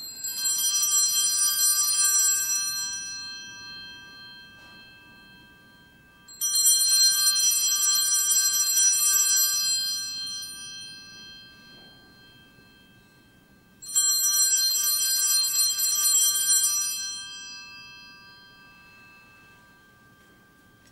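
Altar bells rung three times at the consecration, as the host is elevated. Each ringing is held a couple of seconds and then fades away, about seven seconds apart.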